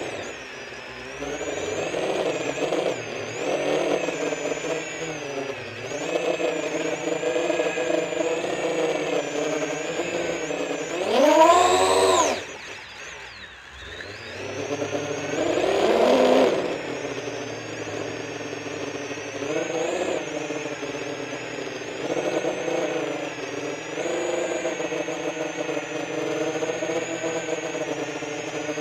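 Brushless motors and 10-inch propellers of an FPV quadcopter whining, heard from on board, with the pitch rising and falling as the throttle changes. A hard throttle punch about 11 seconds in makes it the loudest and highest moment. It drops off briefly, then surges again a few seconds later.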